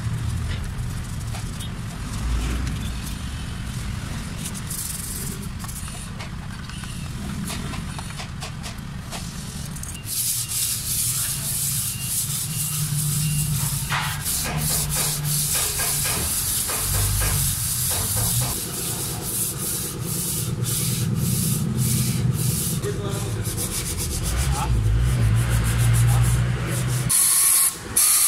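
Brushes and rags scrubbing a bare Hyundai Starex engine block, a run of short rubbing strokes over a low steady rumble, as grit is cleaned out of the block before reassembly. Near the end a compressed-air blow gun starts hissing as the block is blown dry.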